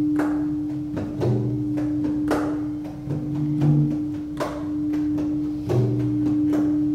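A crystal singing bowl rings one steady, unbroken tone, while hand percussion sounds soft strikes about once a second, some followed by low tones.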